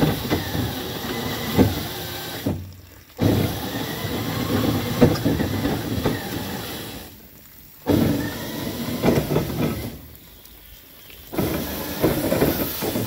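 Rolls-Royce Merlin V12 engine on a cold start, turning over in four rough bursts. Each burst comes in suddenly and then dies away or cuts out, as the engine tries to catch.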